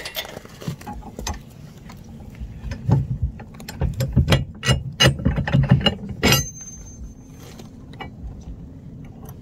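Steel ball mount shank being worked into a Stealth EcoHitch receiver hitch: metal-on-metal clicking, scraping and clanking. One sharp clank about six seconds in rings briefly.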